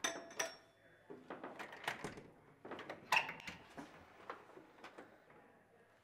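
Metal clicks and clatter of an apartment door being worked: the peephole cover, lock hardware and door handle. A sharp metallic click with a brief ring comes about three seconds in.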